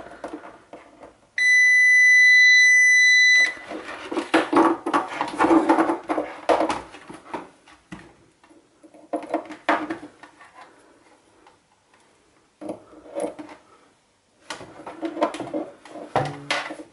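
Digital multimeter's continuity buzzer giving one steady, high beep for about two seconds as the probe tips touch, showing the meter is working. After it come faint clicks and scraping of a probe tip on a thermal cut-out's terminals, with no further beep: the cut-out is open circuit and faulty.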